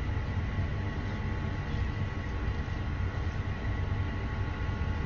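Steady low machine hum with a few faint steady high tones over it, unchanging throughout.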